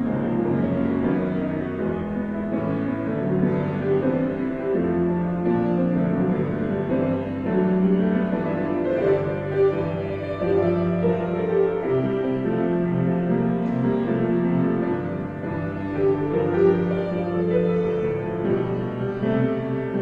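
Slow instrumental music on a keyboard instrument, held chords and a melody moving note by note at a calm, even level.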